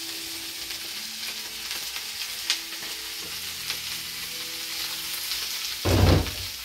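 Huitlacoche, onion and serrano chile sizzling as they fry in oil in a frying pan, with a few light clicks. About six seconds in, a loud dull thump as the pan is stirred with a spatula.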